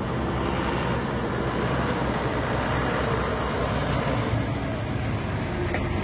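Steady vehicle noise: a bus's diesel engine running close by, a continuous low rumble without a break.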